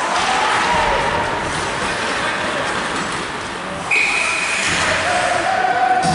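Ice hockey rink ambience: crowd chatter in a large hall over the noise of play on the ice. About four seconds in, a high steady whistle blast sounds for about a second.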